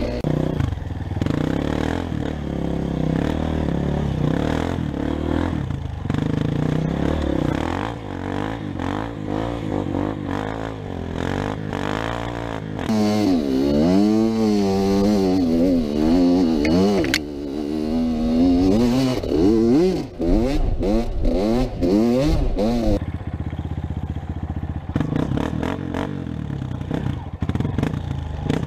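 Kawasaki KX85 two-stroke dirt bike engine being ridden, revving up and down over and over, with the quickest rises and falls in the middle stretch. Near the end the sound changes to a four-stroke Honda CRF230F dirt bike running.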